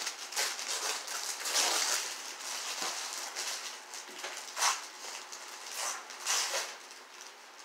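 Paper taco wrappers rustling and crinkling as soft tacos are unwrapped and handled, in several irregular bursts.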